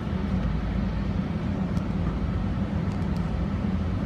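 Airport people-mover train running on its elevated guideway, heard from inside the car: a steady low hum and rumble, with a few faint light clicks about two and three seconds in.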